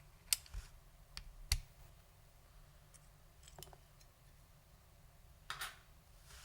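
Lunar AEK 65 keyboard with foam-damped SKCM Orange Alps switches: a handful of single key presses, sharp clicks at uneven gaps, the loudest two in the first second and a half and a pair near the end.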